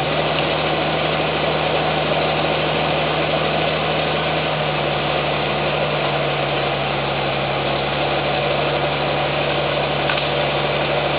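Caterpillar crawler tractor's diesel engine running steadily, its low note shifting slightly about four and a half seconds in.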